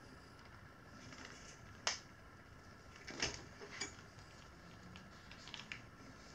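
Three short faint clicks and taps of metal tire levers against the wheel rim, with light handling rustle between them, as the tire bead is worked onto the rim.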